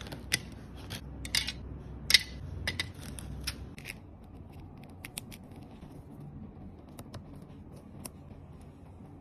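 Light plastic clicks and taps from diamond painting pieces being handled on the canvas, a quick cluster over the first four seconds, then a few scattered single clicks.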